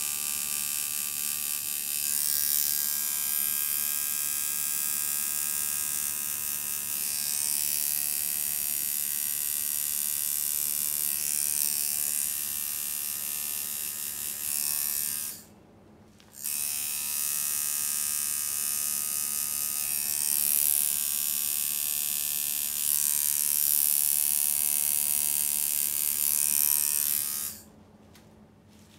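Custom-built electric tattoo machine buzzing steadily as it runs on skin, cutting out for about a second around the middle and again just before the end.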